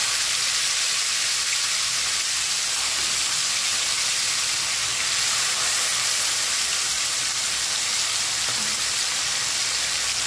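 Whole masala-coated mullet shallow-frying in hot oil on a flat iron tawa: a steady sizzle as the fish are laid into the oil one after another.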